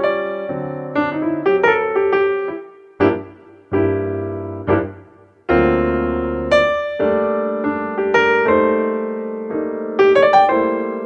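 Background piano music: slow chords under a simple melody, with a couple of brief pauses where the notes die away about three to five seconds in.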